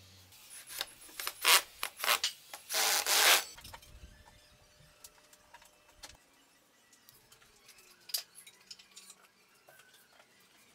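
Parts of a plywood crosscut sled slid and rubbed by hand on a table saw that is not running: a handful of quick scraping strokes in the first three or so seconds, the last one longer, then light taps and clicks.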